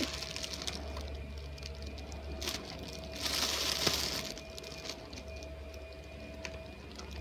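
Packaging of a pack of bottle rockets being handled: scattered small clicks and taps, with one longer rustle about three seconds in, over a steady low hum.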